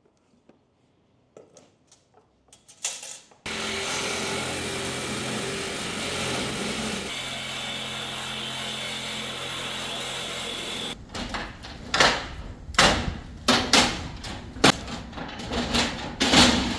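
A power tool running steadily for about seven seconds, starting and stopping abruptly, followed by a series of loud knocks and clatters.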